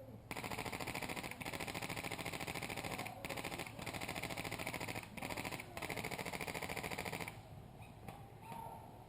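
Airsoft electric rifle firing on full auto: a fast, even mechanical clatter in long bursts with a few short breaks, stopping about seven seconds in.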